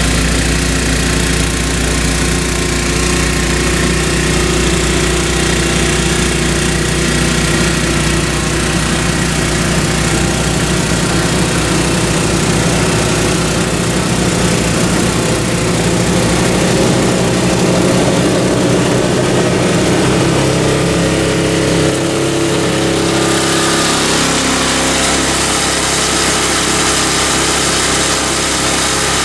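MTD two-stage snowblower's Tecumseh engine running steadily under load while the auger and impeller chew through and throw heavy wet snow. About three-quarters of the way through, the engine note shifts and the sound grows brighter as the machine comes up close.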